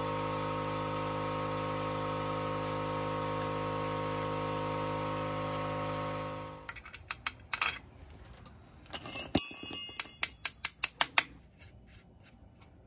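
A loud, steady hum holding one even pitch, which cuts off abruptly about six and a half seconds in. After it come metallic clinks and a quick, even run of clicks as a wrench is worked on the bolt at the base of a front strut assembly.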